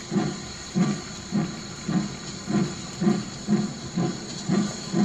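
Steam locomotive chuffing steadily, about two exhaust beats a second, over a steady hiss.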